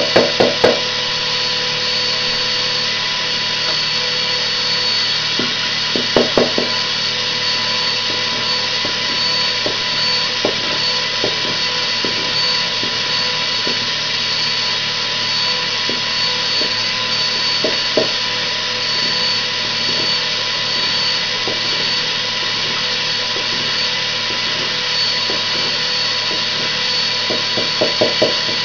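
Vacuum cleaner running steadily with a constant whine, drawing excess glitter off a painted shirt. Short bursts of clicking come at the start, about six seconds in and near the end.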